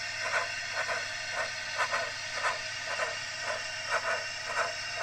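Steam locomotive exhaust chuffs from a Digitrains double Fairlie sound file, played by a Zimo MX649 DCC sound decoder through the model's speaker as the Bachmann 009 double Fairlie runs. Steady chuffing at about two beats a second over a steady hiss.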